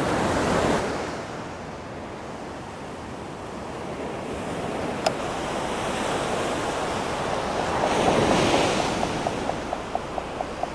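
Surf breaking on a beach with wind on the microphone, a wave swelling louder about eight seconds in, and one sharp click about five seconds in. Near the end a steady ticking starts, about four clicks a second, from an Alvey sidecast reel being wound in.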